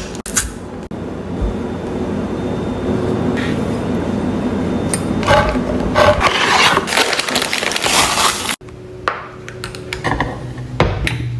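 Handheld can opener cutting around the rim of a large tin of crushed tomatoes: a continuous grinding with brighter scraping toward the end. It stops abruptly about eight and a half seconds in, leaving a low steady hum.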